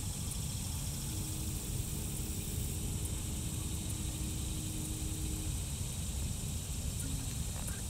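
Steady outdoor background noise: a low rumble under a steady high hiss, with a faint, even hum from about a second in until past the middle.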